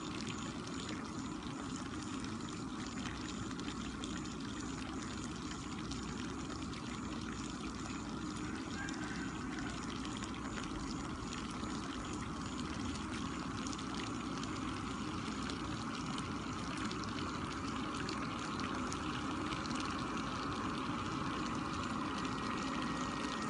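Steady bubbling of air rising from submerged aeration hoses and breaking the surface of a fish pond, driven by an air compressor or blower.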